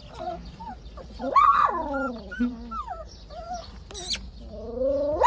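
Podenco puppies whining and yelping as they scramble over one another. Several rising-and-falling whines, a short high yelp about four seconds in, and a louder rising whine at the end.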